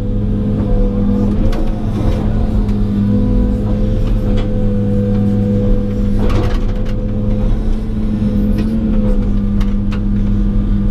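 John Deere 200 excavator's diesel engine running steadily under working load, heard from inside the cab, with a few short knocks as the bucket works in the wet mud.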